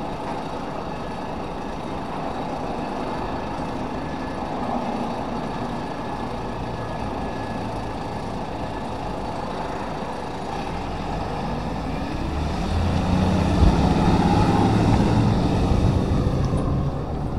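Side-loader garbage truck's diesel engine running steadily, then louder as the truck pulls away about twelve seconds in, and easing off again near the end.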